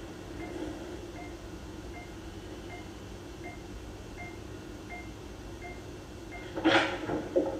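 Hospital patient monitor beeping at a steady pace, one short beep about every three-quarters of a second, over a low steady hum. Near the end a brief loud voice-like sound cuts in.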